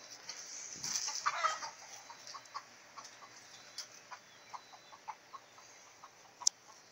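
Chickens clucking: a run of short clucks a few tenths of a second apart, after a louder burst of sound about a second in. A single sharp click comes near the end.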